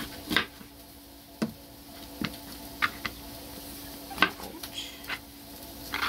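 A kitchen knife knocking and tapping on a plastic cutting board as apples are cut into pieces: several sharp taps at uneven spacing, the loudest about four seconds in. Sausage sizzles faintly in a pan under a steady low hum.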